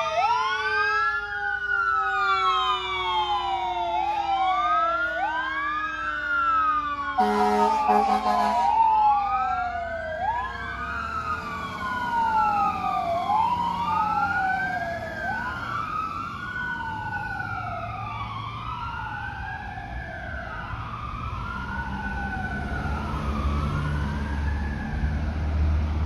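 Fire engine's wail siren rising and falling about every two seconds in two overlapping tones, with a lower tone gliding slowly down beneath it. About seven seconds in, a run of air horn blasts lasts over a second. The siren then fades as the engine pulls away, and a low vehicle rumble grows near the end.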